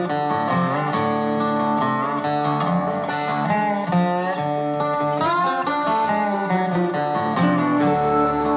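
Background music: a guitar-led instrumental with notes that bend and slide over a steady bass.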